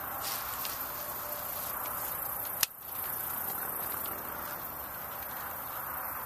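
Steady outdoor background hiss, with one sharp click about two and a half seconds in.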